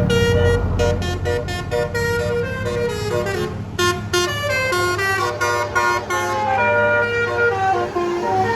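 Bus telolet horn of the 'basuri' kind playing a quick melody of short stepped notes, over the low steady hum of the bus's engine.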